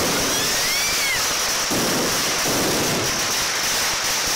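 Dense, continuous crackling of a hand-lit mascletà's firecrackers, with a short rising-and-falling whistle about a second in.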